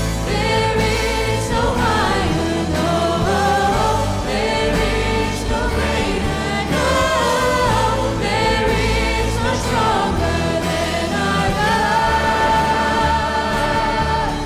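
Live worship band playing a contemporary Christian song, with several singers singing together over guitar, keyboard and a steady bass. The singers hold one long note near the end.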